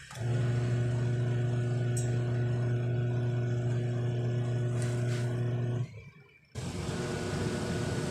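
Sharp washing machine's electric motor running with its belt off, giving a steady mains hum. It cuts off about six seconds in and starts again half a second later, running more quietly.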